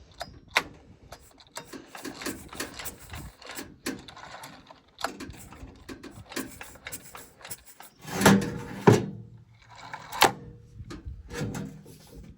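Scattered clicks, knocks and light rattles of objects being handled, with a louder cluster of knocks about eight seconds in.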